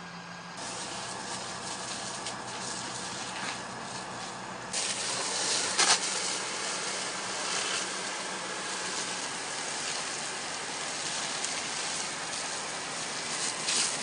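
Fire hose spraying water in a steady hiss, over a low engine hum. The hiss jumps louder and brighter about five seconds in, and there is a single sharp knock about a second later.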